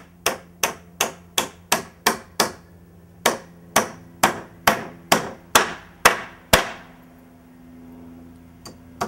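Hammer driving nails through a wooden cripple stud into the wall framing: two runs of about eight blows each, roughly three a second, with a short break between. After a pause of about two seconds, the hammering starts again near the end.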